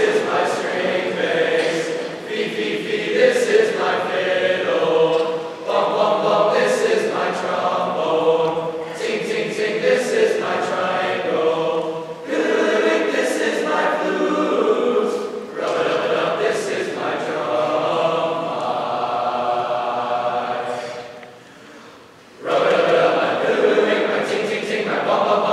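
Men's choir singing in short phrases, with a brief pause about three-quarters of the way through before the full choir comes back in.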